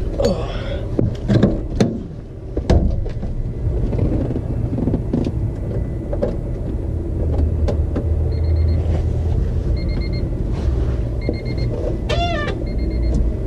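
A few clicks, then the steady hum of a small electric motor, most likely a 12-volt tyre inflator run off the car with the key on to top up the rear tyres. In the second half a short high beep repeats about every second and a half.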